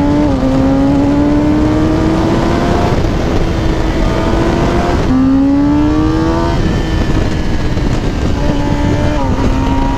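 Kawasaki ZX-10R's inline four-cylinder engine on its stock exhaust, pulling hard through the gears: the note climbs, drops briefly at an upshift just after the start and again about five seconds in, then the throttle is eased about six and a half seconds in and the note settles lower and falls slowly.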